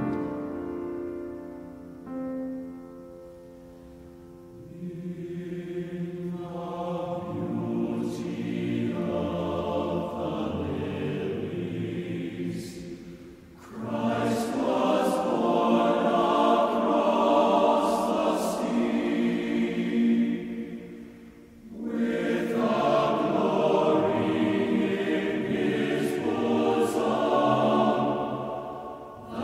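Background music: a choir singing slow, sustained chords in long swelling phrases, with brief lulls about halfway through and again about two-thirds through.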